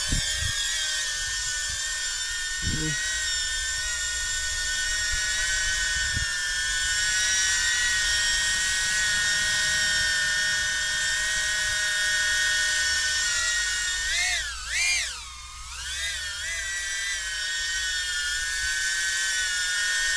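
Flywoo Flylens 85 cinewhoop hovering on Gemfan Hurricane three-bladed props: a loud, steady, high-pitched propeller whine made of several tones. About fourteen to sixteen seconds in, the motor pitch wavers down and climbs back, with a brief dip in loudness.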